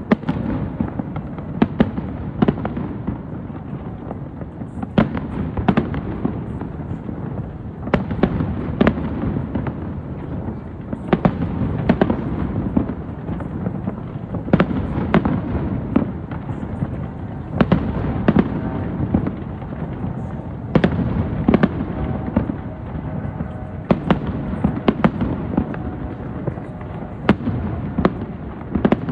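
Fireworks display: shells bursting with sharp bangs every second or two, often in close pairs, over a continuous low rumble and crackle.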